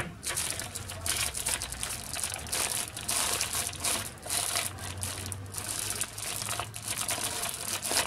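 Thin clear plastic packaging bag crinkling as it is handled and opened by hand: a dense, irregular run of crackles with brief lulls.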